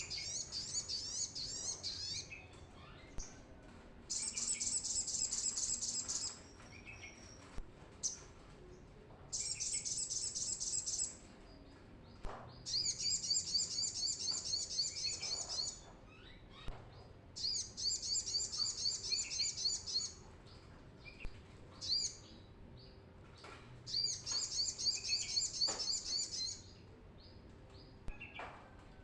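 Brown-throated sunbird singing: six phrases of rapid, high twittering notes, each about two to three seconds long, with short pauses between them. A seventh phrase begins near the end.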